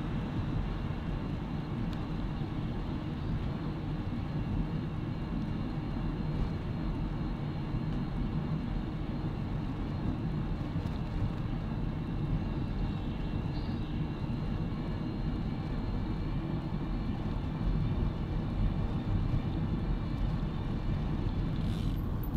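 Steady low rumble of wind on the microphone mixed with a bicycle's tyres rolling along a tarmac lane while riding.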